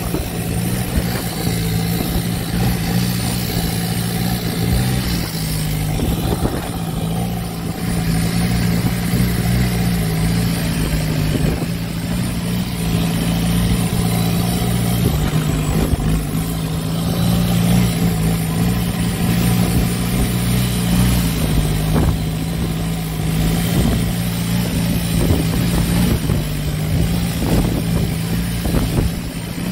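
Boat engine running steadily while under way, its low drone shifting slightly in pitch now and then, over a constant hiss of wind and water.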